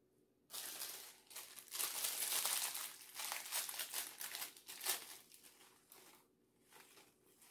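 A small clear plastic salad-topping packet crinkling as it is handled and its crunched-up tortilla strips are shaken out. The crinkling starts about half a second in, is densest over the next four seconds, then thins to a few scattered crinkles.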